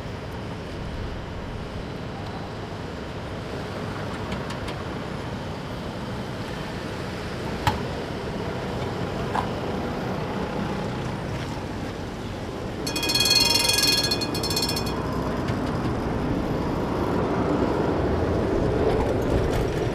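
Tatra T4SU tram running, with a steady rumble. A shrill ringing signal sounds for about two seconds midway, and the rumble then grows as the tram moves off.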